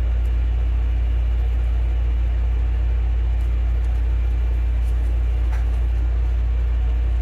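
Steady low electrical hum, with a few faint small clicks as the phone's display and battery connectors are pressed into place.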